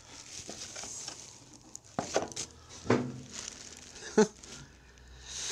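Clear plastic wrap around a new small engine rustling and crinkling as hands work at it, with scattered small clicks and knocks. One sharp click stands out a little past four seconds in.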